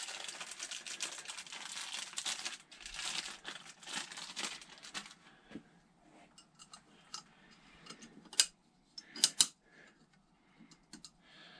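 Packaging crinkling as the new fork-seal retaining spring clip is unwrapped, then a few sharp clicks, the loudest two about eight and nine seconds in, as the clip is fitted into its seat above the oil seal.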